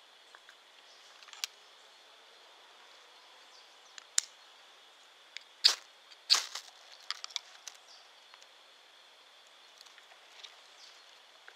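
A fire striker scraped over a solid-fuel tablet to light it: a few sharp scrapes, the two loudest close together just past halfway, then a few small ticks. A steady high insect drone runs underneath.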